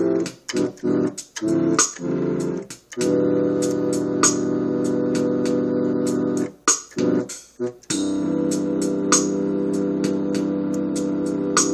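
Keyboard piano playing held chords, each struck chord ringing for a second or more, with short gaps and quick chord changes about a second in and again near the middle; a sharp click marks each new chord.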